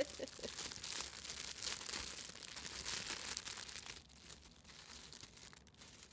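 Crinkly gift wrapping being handled and unwrapped by hand: a busy crinkling rustle that dies down to faint, scattered rustles about four seconds in.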